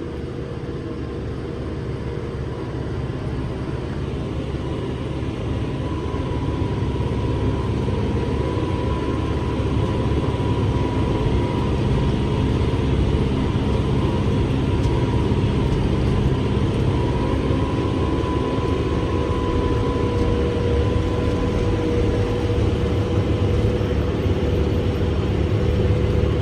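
Kubota M7-172 tractor's diesel engine running steadily under load while it pulls a forage harvester chopping corn: a continuous drone with a faint thin whine on top, growing gradually louder over the first several seconds.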